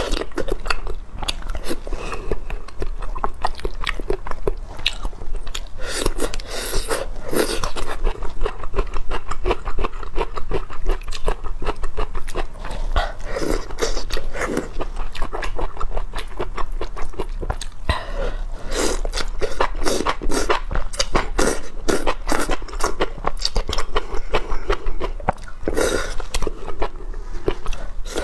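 A person eating wide flat noodles with chopsticks, slurping them in and chewing, with many wet mouth clicks.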